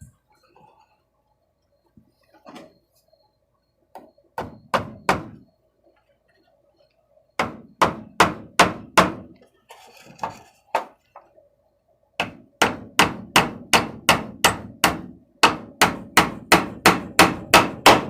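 A hammer striking metal in runs of quick, even blows, about three a second in the longest run near the end, each with a short ring.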